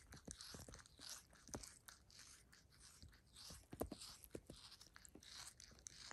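Sphynx cat licking its own bare skin while grooming: faint, wet, rasping tongue strokes, about two a second, with small clicks.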